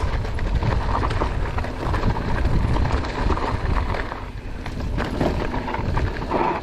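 Wind rumbling on the microphone of a mountain bike, with the crunch and rattle of its tyres and frame over rocky dirt singletrack: many small knocks throughout.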